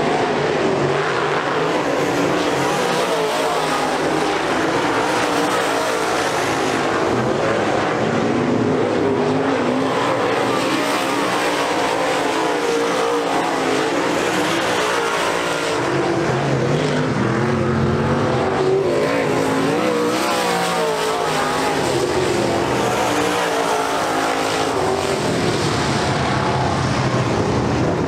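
A field of UMP dirt modified race cars' V8 engines running hard around a dirt oval, loud and steady, their pitch rising and falling as the cars accelerate, lift and pass.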